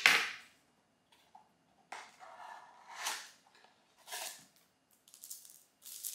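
Cardboard box being opened and a paper strip packet pulled out of it: a sharp scrape right at the start, then short bursts of cardboard and paper rustling, turning to brighter crinkling near the end.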